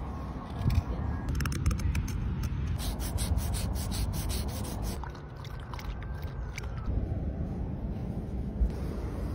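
Short scraping strokes on a wooden spoon, first from a carving knife and then from sandpaper, coming in clusters over a steady low rumble.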